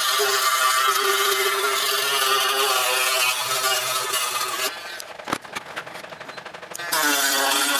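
Small battery mini hand drill with an abrasive grinding bit running against the teeth of a steel crosscut saw blade, grinding off rust, with a steady motor whine. The motor falls away for about two seconds, then spins back up near the end.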